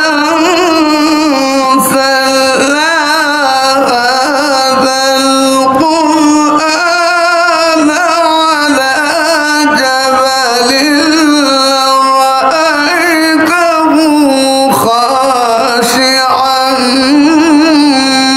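A man reciting the Quran in the melodic tilawat style into a microphone: long held, wavering notes in phrases of a few seconds, with short breaths between them.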